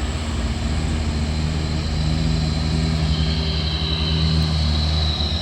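Nissan truck's diesel engine running steadily under way. About three seconds in, a thin high whine sets in over the engine drone and rises slightly.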